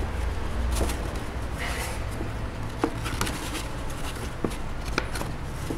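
Folding printed scenery board being unfolded and stood up by hand: a brief rustle and several light taps of the board against the table, over a steady low rumble.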